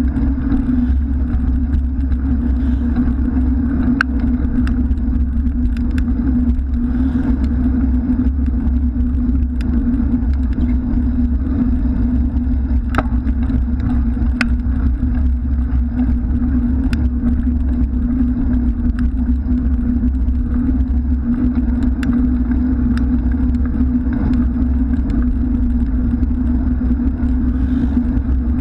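Steady low rumble of wind and road vibration on a bicycle-mounted action camera as the bike rolls along a paved lane, with scattered small clicks and ticks of rattle. Motor traffic runs alongside.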